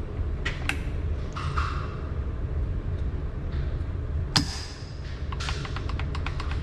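Sharp mechanical clicks from a gun over a steady low rumble: one louder click about four seconds in, then a quick run of light ticks. The trigger is being pulled but the gun does not fire.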